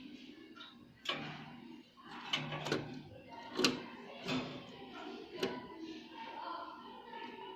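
Jaspe canary giving short, separate chirps about every half second to a second, with sharp clicks between them.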